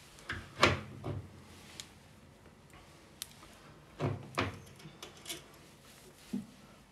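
A few short wooden knocks and clicks as an upright piano's action is settled onto its brackets and its brass holding nuts are screwed down by hand, in two clusters about half a second in and about four seconds in.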